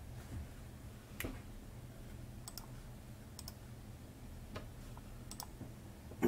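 Computer mouse buttons clicking now and then: about five sparse clicks, some in quick pairs, over a low steady hum.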